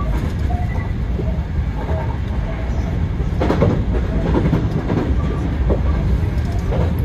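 Hankyu Kobe Line electric train running at speed, heard from inside the front car: a steady low rumble with wheels clicking over rail joints, the clicks clustered about halfway through.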